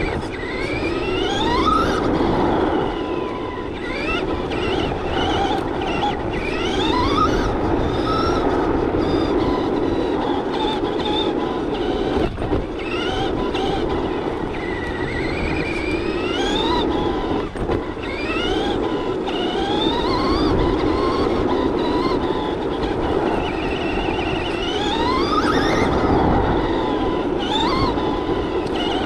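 Electric drive motor and gears of a Traxxas Slash 2WD RC short course truck whining, rising in pitch each time it accelerates, again and again, over steady tyre noise on gravel and asphalt.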